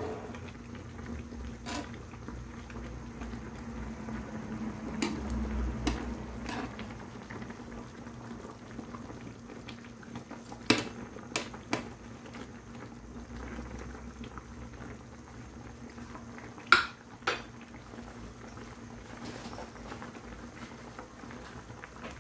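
Chicken sinigang soup boiling hard in a pan, a steady bubbling. A metal ladle clinks against the pan a few times, sharpest in two pairs about eleven and seventeen seconds in.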